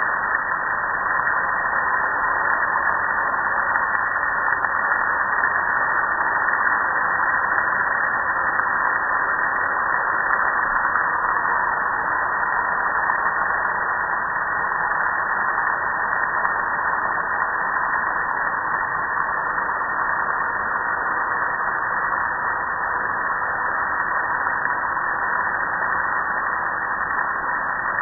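Pressure washer spraying a steady jet of water onto a metal gas grill, a continuous hiss and splash.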